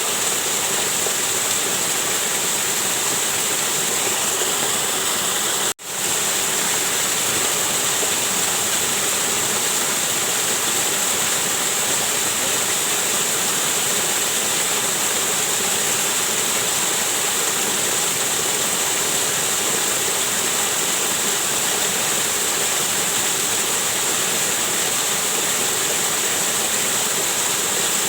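Waterfall rushing: a steady, even roar of falling water, with a momentary dropout about six seconds in where the sound cuts out and comes straight back.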